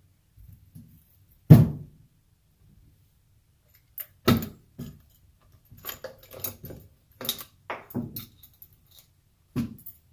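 Cast metal parts of a JB vacuum pump knocking and clinking against each other and the bench as they are handled and fitted together: a loud knock about one and a half seconds in, another around four seconds in, then a run of smaller clinks and knocks and a last knock near the end.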